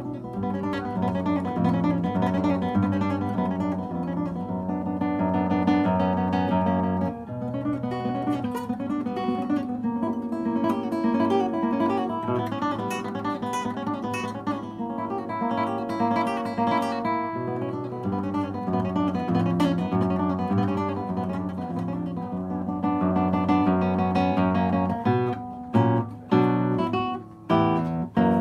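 Solo nylon-string classical guitar played fingerstyle: a continuous run of plucked notes over held bass notes, breaking near the end into separate chords with short pauses between them.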